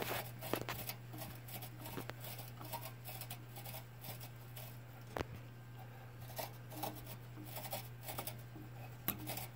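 Small scattered clicks and scraping as a porcelain immersion heater is wiggled back and forth in the steam engine's boiler, over a steady low hum.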